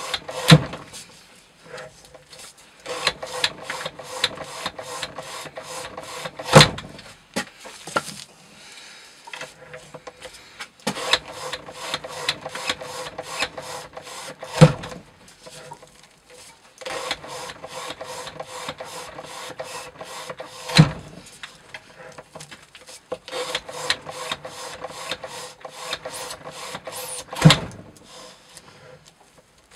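Hand-operated rope-cutting rig for testing a knife's edge wear: runs of quick, even mechanical clicking a few seconds long, broken by five loud knocks about every six to seven seconds.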